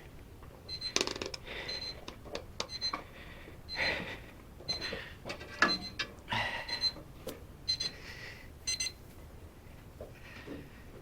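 A series of short, high electronic beeps at uneven intervals, mixed with clicks and rustling from hands working on the wiring.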